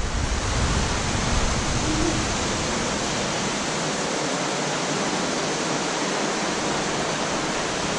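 Steady, even hiss with no distinct event in it; a low rumble underneath dies away about three seconds in.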